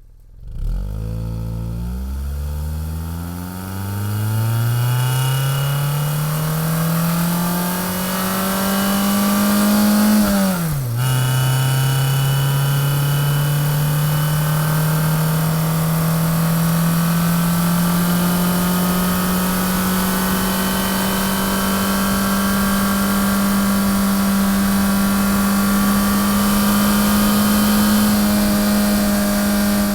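Motorcycle engine pulling away from idle and accelerating, its pitch climbing for about ten seconds. The pitch drops sharply at a gear change about eleven seconds in, then rises slowly and settles into a steady cruise.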